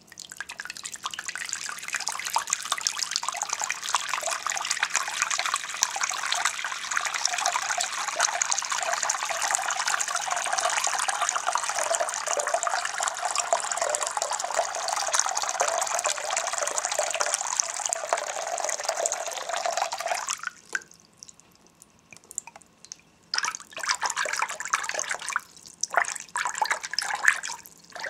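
Water running steadily from the tap at a hair-washing sink for about twenty seconds, then shut off, followed by scattered drips and splashes.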